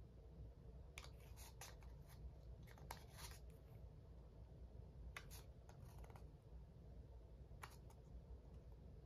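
Near silence with about half a dozen faint, short rustles and taps from a folded cardstock accordion strip being handled while tacky glue is squeezed onto its edges.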